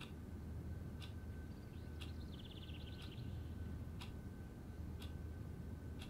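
A clock ticking quietly and evenly, one tick a second, over a low steady room hum. A brief high chirping trill comes in about two seconds in.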